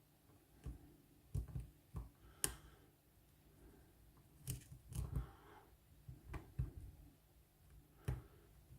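Metal lock pick clicking and scraping against the pins of a spool-pinned Lockwood oval pin-tumbler cylinder during picking. About ten irregular sharp clicks, some in quick pairs.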